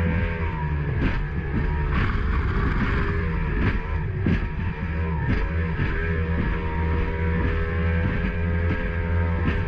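Mercury 2.0-litre V6 two-stroke 135 hp outboard running steadily at high speed, heard from the cockpit, with the hull knocking irregularly as it slaps over the chop.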